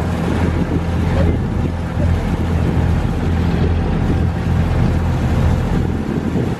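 Passenger boat's engine running steadily, a low even hum heard on board, over a steady rushing hiss.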